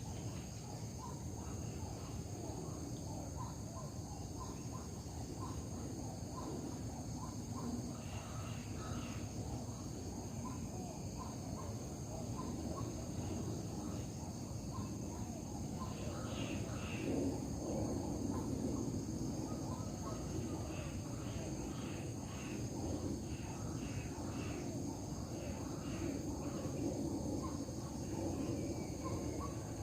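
Outdoor ambience of insects, likely crickets, trilling steadily at a high pitch, with scattered short chirps over a low background rumble.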